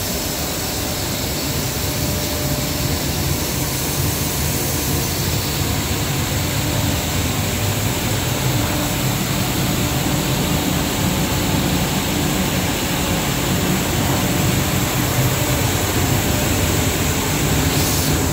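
PURUI single-screw plastic recycling granulating line running, giving a steady machine drone with a constant low hum.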